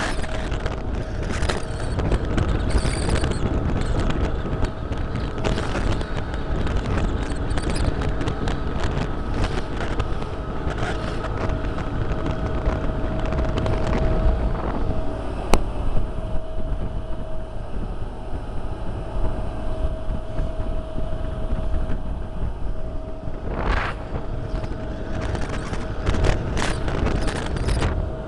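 Wind buffeting the microphone and choppy water splashing against the hull of a small electric boat under way, with a steady whine from its electric motor.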